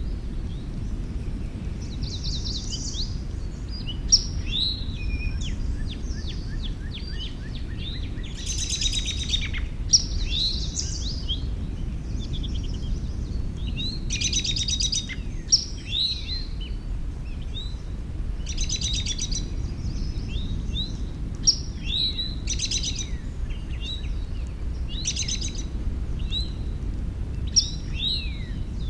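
Several songbirds singing: quick chirps and down-slurred whistled notes, with a short buzzy trill every few seconds. A steady low rumble lies underneath.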